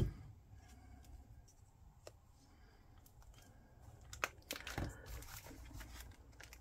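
A sharp knock on the table right at the start, then faint rustling and light taps of cardstock being handled and pressed together, growing louder from about four seconds in.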